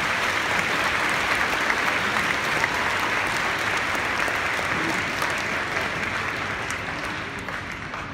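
Large audience applauding, steady and loud, slowly dying down over the last couple of seconds.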